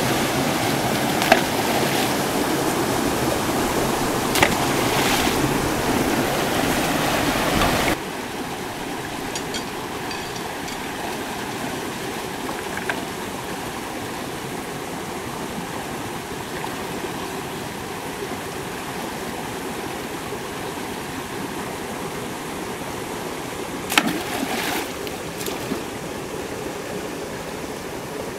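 Rushing water of a shallow rocky stream with small cascades, a steady rush that drops in level about eight seconds in. A few brief splashes from wading and hands in the water, the clearest near the end.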